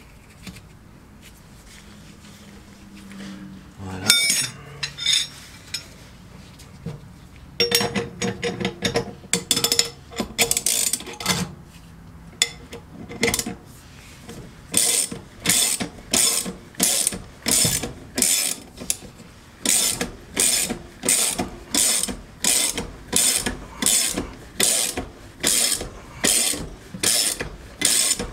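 Ratchet wrench being cranked. It starts about four seconds in with a knock and uneven clicking, then settles into steady back-and-forth strokes, about three every two seconds, each a quick run of pawl clicks.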